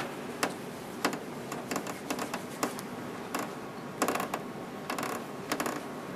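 Irregular small clicks and creaks over steady room noise, with a quick cluster of them about four seconds in.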